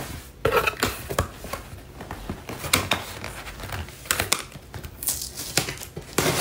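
Cardboard box being opened by hand: flaps pulled apart and folded back, with irregular rustles, scrapes and sharp taps of cardboard.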